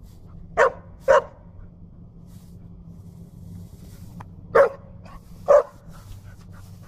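Puppy play-barking at a moving push broom: four short barks in two pairs, one pair about a second in and the other some three and a half seconds later.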